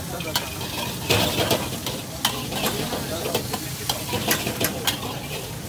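Chicken sizzling as it stir-fries in a hot pan. A metal spatula scrapes and strikes the pan in sharp, irregular clanks, about two or three a second.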